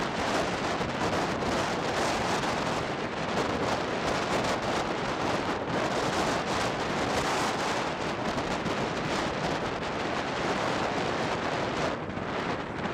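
Steady rushing hiss of a storm, wind and rain noise on the microphone, with no pauses. It thins slightly near the end.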